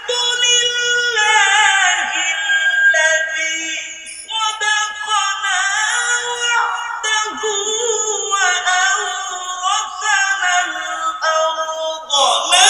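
Male qari reciting the Quran in a melodic tilawat style, one voice holding long, ornamented notes, amplified through stage microphones. There is a short break about four seconds in.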